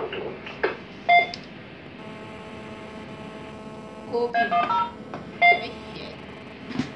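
A few short electronic beeps at different pitches: one about a second in, a quick run of rising and falling beeps around four seconds in, and another about five and a half seconds in, over a faint steady hum.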